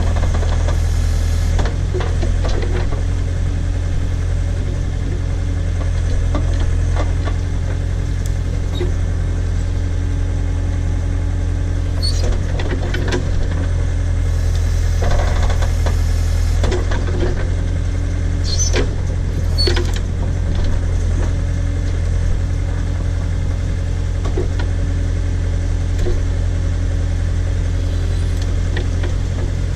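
Case/Davis D100 backhoe's engine running steadily while digging out a tree stump, with scattered clanks and scrapes from the bucket, a cluster of louder ones in the middle.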